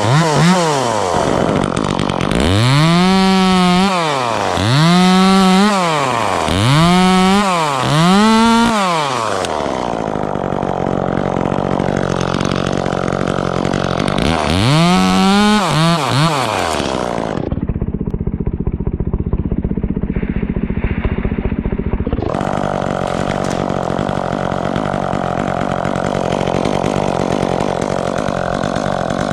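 Two-stroke chainsaw revved hard in repeated bursts, each rising and falling in pitch, then dropping to a steady idle with one more rev. For a few seconds past the middle the sound turns muffled and dull, and then the saw idles evenly again.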